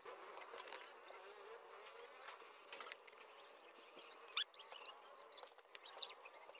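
Faint clicks and light rattling of a motorcycle drive chain being handled and worked with a chain tool while a new chain is fitted, with one sharper click about four and a half seconds in, over a faint steady buzzing hum.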